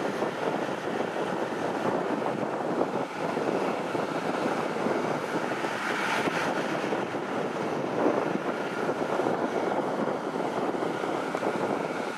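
Kubota DC-105X rice combine harvester running steadily while cutting rice, a continuous engine and threshing drone.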